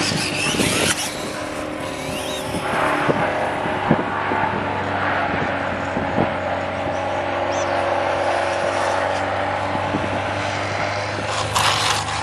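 Electric Losi Promoto MX RC dirt bike riding on asphalt, its motor whining and tyres hissing as it passes close near the start and again near the end, fainter while it is farther off.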